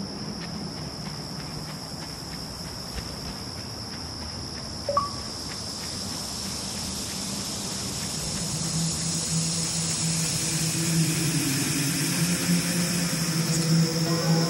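Steady high insect chirring over a low droning hum that slowly grows louder, with one short chime about five seconds in; a music intro swells in toward the end.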